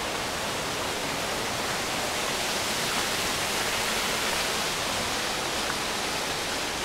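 Fountain water splashing into a stone basin: a steady rushing hiss.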